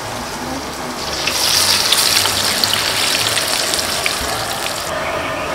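Batter-coated cauliflower pieces frying in a large iron kadai of hot oil, the oil sizzling and bubbling hard with fine crackling. The sizzle grows louder about a second in as more pieces go into the oil.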